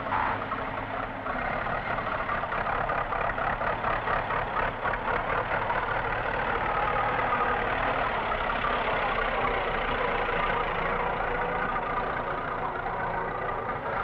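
Massey Ferguson 500 combine harvester's engine running steadily with a fast, even pulse, heard on an old film soundtrack.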